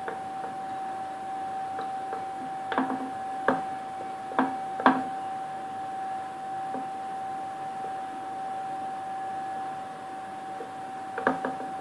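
A few light knocks and taps on a glass cake bowl as chocolate pieces are pushed into the batter: a handful between about three and five seconds in, then a pair near the end. A steady faint high hum runs underneath.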